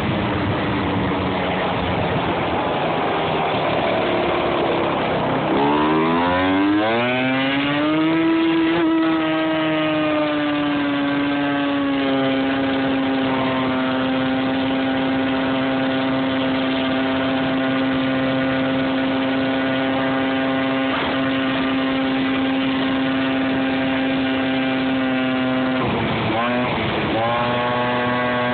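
Small motor scooter engine under way. Its pitch falls as it slows, climbs over a few seconds as it speeds up, then holds steady for a long stretch. Near the end it dips briefly and picks up again.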